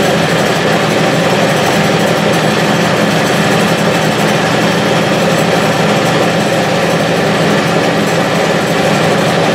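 Clausing 6930 metal lathe, driven by a variable-frequency drive, running steadily with its chuck spinning: an even, continuous machine whir from the motor, drive and headstock gearing.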